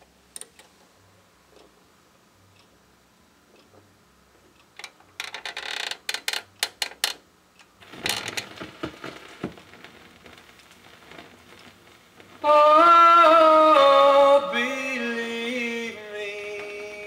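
A turntable being started for a 45 rpm single: a run of clicks from the mechanism and handling, then record surface noise from about eight seconds in as the stylus rides the lead-in groove. About twelve seconds in the 1950s doo-wop record starts playing, opening with loud held notes that step down in pitch.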